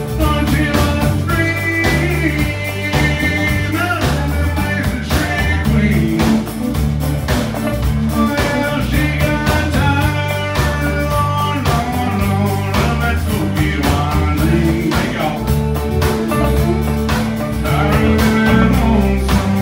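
Live country band playing: fiddle melody over strummed acoustic guitar and drums.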